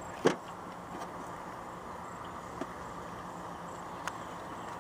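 A kitten set down onto the aluminium deck of a jon boat: one sharp knock about a quarter second in, then a few light taps over a steady background hiss.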